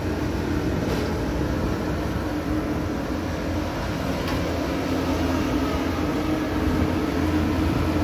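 Crawler combine harvester's diesel engine running at a steady, even hum as the machine creeps slowly across the paddy on its tracks.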